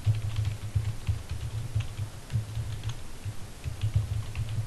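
Computer keyboard typing: a quick, uneven run of keystrokes as a shell command is typed out.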